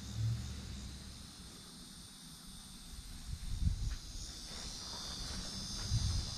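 Steady high-pitched insect chorus that grows louder about halfway through, with irregular low thuds and rumbles underneath.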